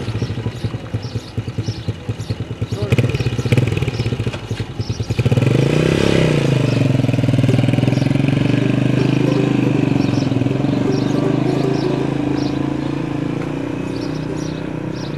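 Small motorcycle engine running with a fast, uneven putter, then revved about five seconds in as the rider pulls away, settling into a steady drone that slowly fades as the bike moves off.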